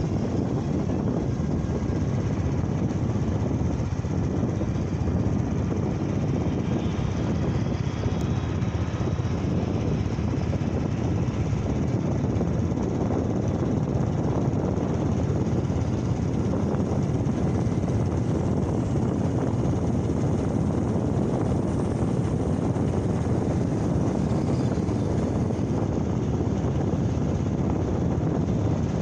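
Steady rushing wind on the microphone and a low motor drone from riding a motorcycle at speed along a highway.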